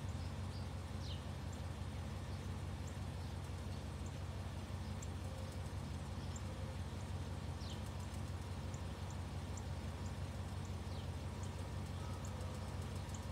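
Steady low background rumble with faint birds chirping over it: a few short, falling high calls and scattered high ticks.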